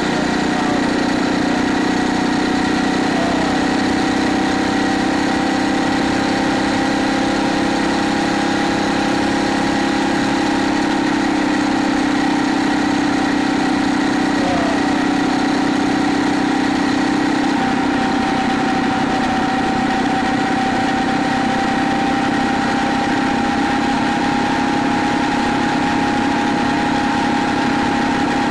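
Phatmoto Rover motorized bicycle's small four-stroke gas engine running steadily under way, a constant buzzing hum at cruising speed. The lower part of the engine note eases slightly about two-thirds of the way through.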